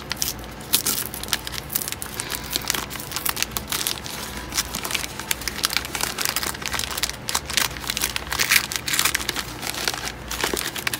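Paper treat bag crinkling and rustling as it is handled and opened, with many irregular sharp crackles.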